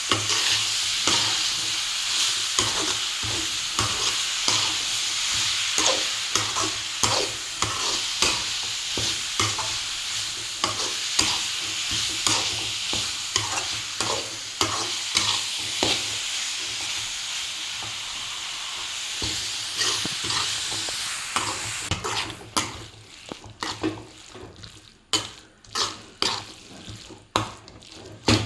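Vadukapuli lime pieces with spices sizzling in hot oil in a pan while a spoon stirs, knocking and scraping against the pan over and over. The sizzle dies away about three-quarters of the way through, leaving only the spoon's knocks and scrapes.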